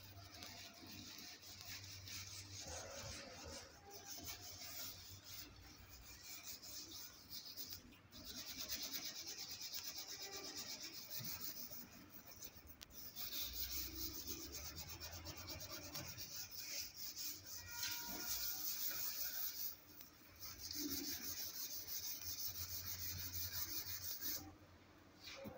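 Hand scrubbing on the glass panel of a commercial oven door: a steady rasping rub in stretches of a few seconds, with short pauses in between.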